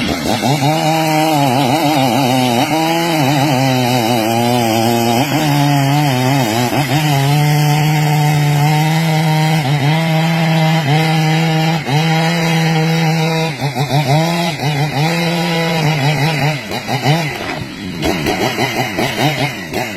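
Two-stroke chainsaw running at high revs, its pitch repeatedly dipping and recovering as it cuts into wood; the engine note turns uneven near the end.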